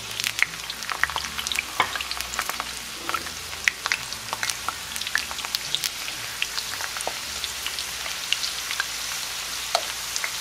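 Cut potatoes going into hot rice bran oil (about 360–370 °F) in a cast-iron skillet, frying with a dense crackle of sharp pops over a hiss. The pops thin out toward the end into a steadier sizzle as the fries are moved around with a utensil.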